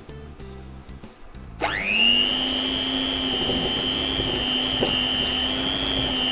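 Electric hand mixer switching on about a second and a half in, its motor whine rising quickly and then running steadily as the beaters cream butter and icing sugar.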